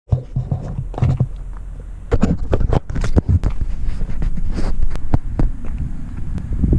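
Handling noise on a camera's microphone: irregular knocks, rubs and scrapes over a low rumble.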